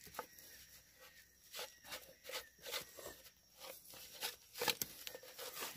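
Faint, irregular crunches, scrapes and clicks of hands working in mud and debris to open a bamboo trap and remove the catch.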